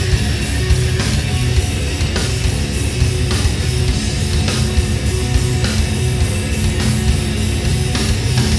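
Rock band playing live: heavy distorted electric guitar and bass over a steady drumbeat, with hits a little under two a second.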